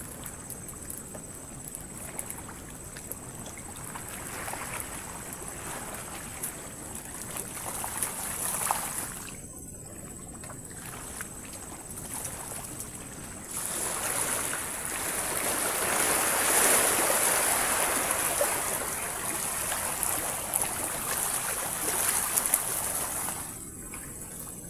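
Waves washing onto a beach, a steady rushing that swells louder for about ten seconds from about halfway in. Small ticks and rustles of hands working a wooden camp-bed frame sit on top, and a faint steady high tone runs throughout.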